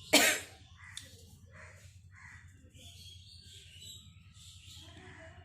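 A sudden loud, harsh burst right at the start, then crows cawing in the background over a low steady hum.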